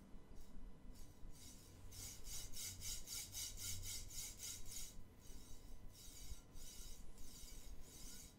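Ball-bearing carriage of a 3D printer's oiled steel linear rail slid back and forth by hand, giving a gritty rasp with each stroke. The strokes come quickly, about four a second, then slow down about five seconds in.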